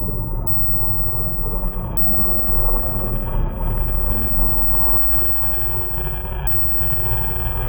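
Steady, deep rumbling drone of designed horror ambience, built from low monster-growl textures.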